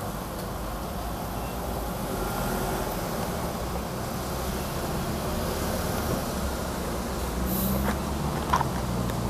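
A scooter riding along, a steady low rumble of motor and road. A brief high hiss comes about seven and a half seconds in, and a sharp knock about a second later.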